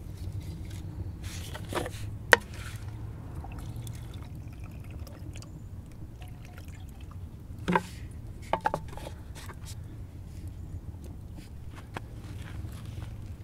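Liquid poured from a clay jug into a small clay pot, trickling and dripping. A few sharp knocks stand out, the loudest about two seconds in, and a small cluster around the middle.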